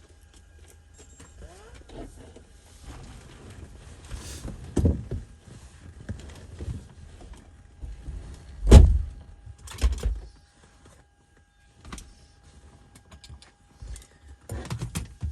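A series of knocks and thumps from handling things in and around a car, the loudest a heavy thump about nine seconds in, over a faint steady high tone.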